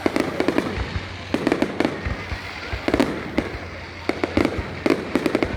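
Fireworks going off: clusters of sharp pops and bangs in quick, irregular succession, with a steady low hum underneath.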